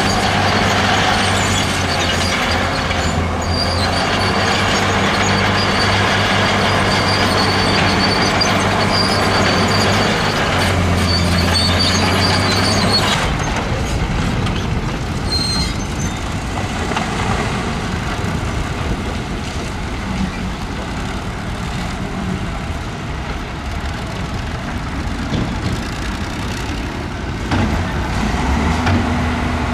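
Heavy diesel earthmoving machinery running steadily, with a high metallic squeal coming and going over the engine. The engine drops away and gets quieter about halfway through.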